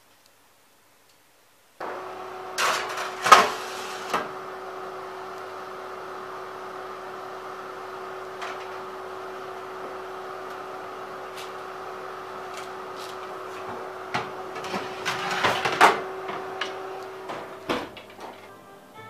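Steady motor hum of a fan-assisted electric oven standing open, with knocks and metal clatter of baking pans and the oven rack a second or two in and again a few seconds before the end. A last thump as the oven door shuts, after which the hum drops away.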